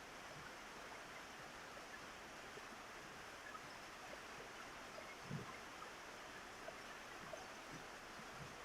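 Rain falling on a roof: a soft, steady hiss dotted with small drip taps, and one heavier drop landing about five seconds in.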